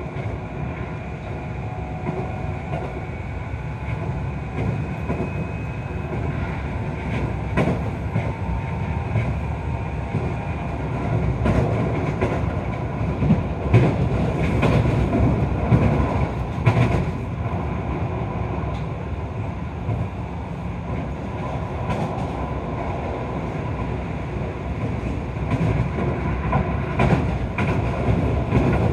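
Keio 5000 series electric train running, heard from inside the passenger car: a steady low rumble of wheels on rail with irregular clicks over rail joints.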